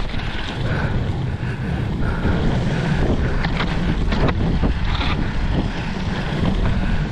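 Wind buffeting the rider's camera microphone while a mountain bike's tyres rumble over wooden boardwalk planks. The bike rattles along, with a few sharp clacks partway through.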